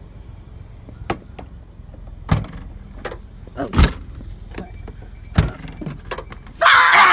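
Wind rumbling on a phone microphone, with several sharp knocks and thumps around a car, then a sudden loud cry of surprise near the end.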